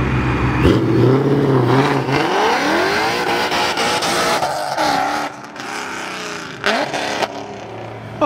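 Car engine going from a low idle to hard acceleration about a second in, pitch climbing and dropping again with each upshift, then fading after about five seconds; two sharp cracks near the end.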